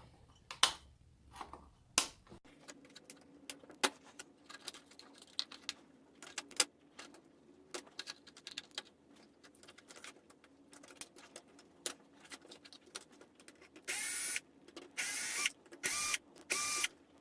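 Parts and wiring of a dismantled plastic electronic toy being handled: scattered clicks and taps, then four short rasping bursts near the end.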